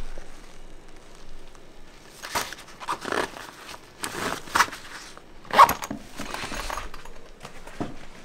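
Millet Ubic 40 backpack being handled: the zip of the hip-belt pocket is worked and the nylon fabric rustles. There are a few short, scratchy strokes between about two and six seconds in.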